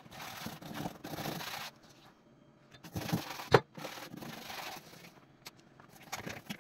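Stiff-bristled brush scrubbing a greasy stovetop coated in oven cleaner, in two spells of rapid strokes with a pause between. There is one sharp knock in the middle of the second spell, and a few short strokes near the end.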